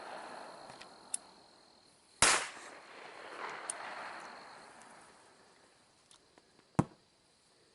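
Firecrackers going off one at a time: a loud bang about two seconds in followed by a long fading echo, a few faint pops, and a sharper crack near the end.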